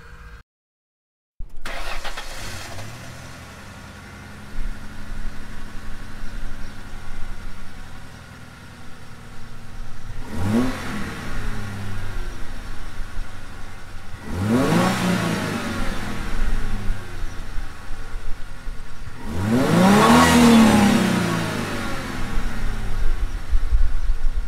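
1996 Ford Mustang engine starting after a brief silence, settling into a steady idle, then revved three times, each rev rising and falling back to idle, the third the loudest and longest.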